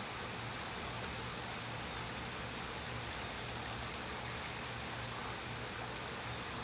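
Steady, even rushing of running stream water, with no breaks or sudden sounds.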